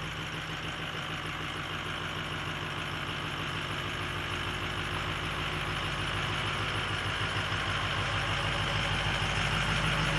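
A vehicle engine running steadily and slowly getting louder.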